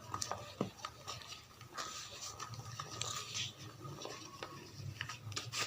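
White gym chalk being crumbled, giving an irregular run of small crackles, clicks and soft crumbling hiss, with a sharper snap near the end.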